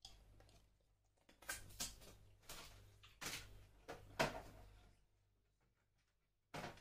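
A handful of faint, irregular knocks and clatters over a low steady hum, the loudest about four seconds in, then quiet until another sound starts just before the end.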